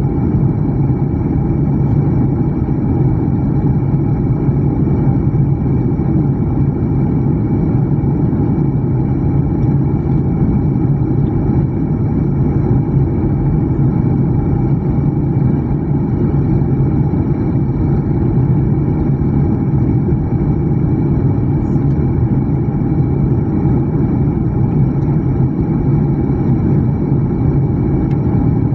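Jet airliner cabin noise during descent: a steady drone of the engines and rushing air, with a low hum underneath.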